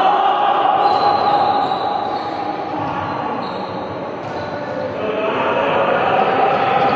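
Reverberant sports-hall noise from a ball-sport training session: balls bouncing on the court amid players' overlapping voices.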